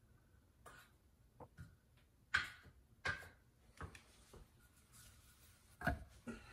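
A few scattered light clicks and knocks as a mesh-backed mosaic tile sheet is handled, held up to the backsplash and set down on the countertop, its tiles knocking against each other and the counter. Two sharper knocks stand out, about two seconds in and near the end.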